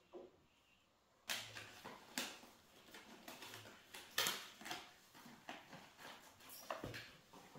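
Paper packet rustling and crinkling as it is handled, in quick irregular crackles starting about a second in.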